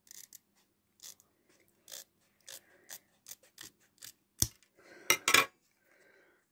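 Scissors snipping through the clear plastic stuck around a trading card: a run of short cuts about every half second to second, with the loudest clicks about four and a half and five seconds in.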